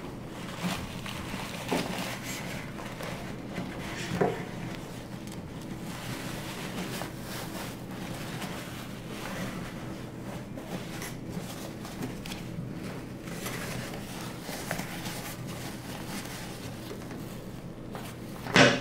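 Cloth filter rustling as it is bent and pressed by hand into the grooves of a central vacuum canister, with a couple of light knocks against the plastic, over a steady low hum.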